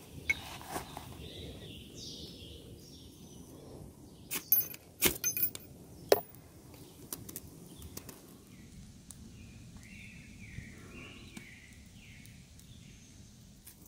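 Ferro rod struck with the back of a knife to light a tinder bundle: about five quick, sharp scrapes in a burst near the middle, with quieter handling and rustling of tinder around them.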